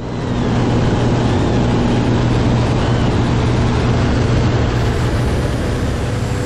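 Single-engine propeller aircraft's engine and propeller running steadily, a low drone with a rush of wind through the open jump door.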